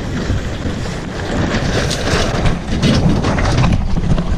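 Wind buffeting the microphone and water rushing past a Lightning-class sailboat's hull, with a run of quick clattering clicks and knocks from the boat's gear, thickest from about a second and a half to nearly four seconds in.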